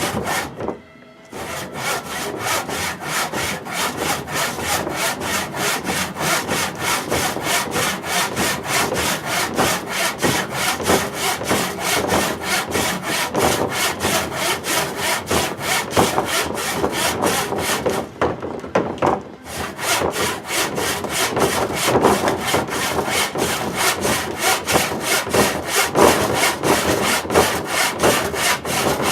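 Rusty hand saw cutting through a wooden stool leg in steady back-and-forth strokes, with two brief pauses, about a second in and again around two-thirds of the way through.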